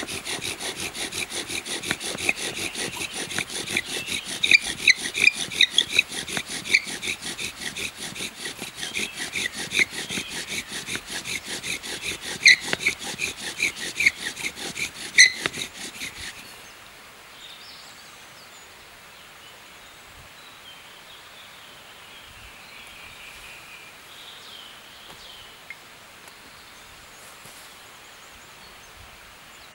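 Small folding saw cutting into a block of wood with rapid back-and-forth strokes, working a notch into a bow-drill hearth board; the sawing stops abruptly about 16 seconds in.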